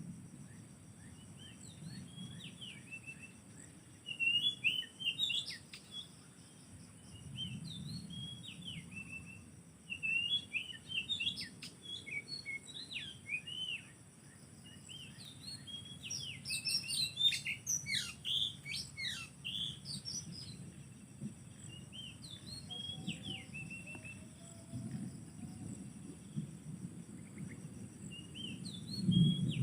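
Oriental magpie-robin calling and singing in short, quick chirps and whistled phrases, busiest in the middle, over a steady high-pitched insect drone.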